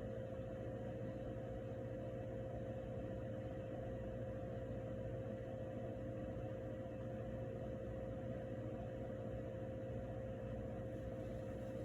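Steady room tone: a constant hum with a single high-pitched tone held over faint hiss, unchanging throughout.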